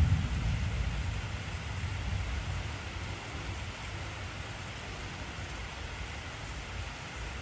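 Steady heavy rain, with a deep thunder rumble that fades away over the first few seconds and then lingers faintly beneath the rain.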